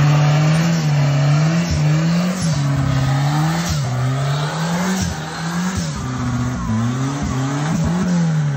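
Turbocharged Volkswagen Parati doing a burnout: the engine revs climb and then drop sharply over and over, about once a second, with the rear tyres spinning.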